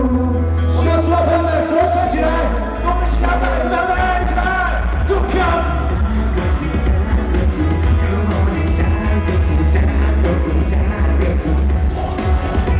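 Pop song played live by a band, with a heavy bass line and drums and a wavering sung melody over them.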